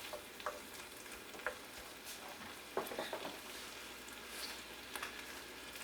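Chili sauce simmering and sizzling in a pan, with a few light clicks and scrapes from a utensil stirring it. The sauce is cooking down to thicken.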